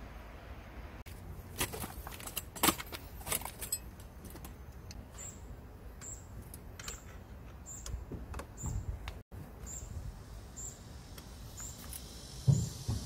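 Sharp metallic clinks and taps of a hex key and clamp hardware as a highway peg mount is fitted to a motorcycle's steel engine guard, in scattered clusters. From about five seconds in, a short high chirp repeats about once a second in the background.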